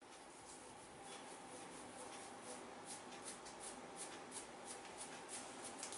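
Hands rubbing through hair and over the scalp in a head massage: soft, faint rustling strokes, a few a second.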